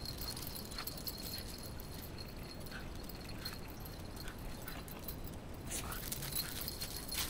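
Shiba Inus scampering about in play on concrete: scattered light clicks and scrapes of claws on the hard ground, over a faint steady high tone.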